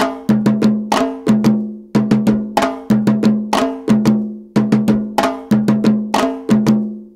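Salsa drum intro: percussion alone, playing a repeating rhythm of sharp, ringing pitched drum strikes.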